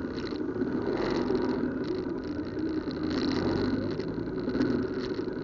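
Traffic at a standstill: vehicle engines idling, a steady low hum with irregular light rattling over it.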